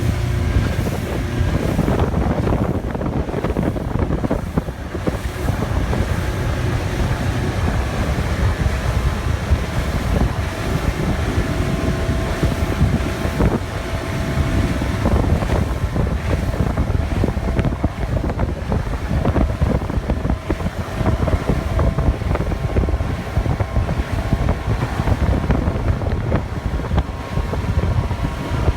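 Speedboat with a MerCruiser 3.0 L four-cylinder sterndrive running steadily under way, with wind buffeting the microphone.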